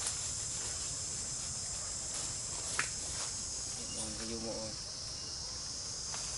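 Steady high-pitched chorus of insects droning without a break. A single sharp click comes a little under three seconds in, and a brief low voice about four seconds in.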